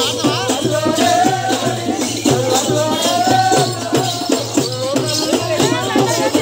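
Loud folk devotional music: a drum beating steadily about four times a second, with rattling percussion and several voices over it.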